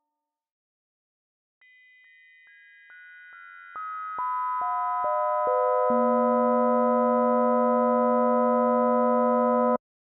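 Synthesized model of the overtones of a 22-pood bell cast in 1640: pure steady tones enter one by one, from the highest down to the deepest, about a dozen over four seconds, each adding to the loudness. They are then held together as one sustained bell-like chord, the deepest tone loudest, and all cut off at once near the end.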